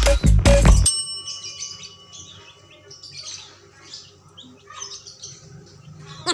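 Music with a heavy bass line cuts off about a second in, leaving faint, scattered high chirping of birds.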